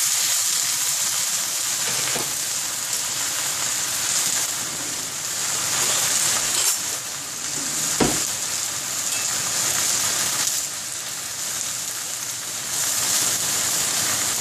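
Napa cabbage sizzling as it stir-fries in hot oil in a cast-iron skillet, a steady dense hiss. A single sharp knock about eight seconds in.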